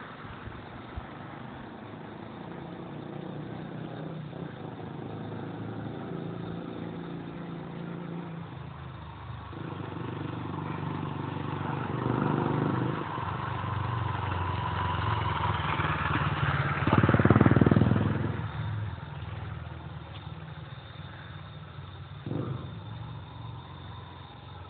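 A motor vehicle's engine running, growing louder to a peak about two-thirds of the way through as it comes close, then fading away. A short knock near the end. The sound is muffled, recorded through an old camera phone's microphone.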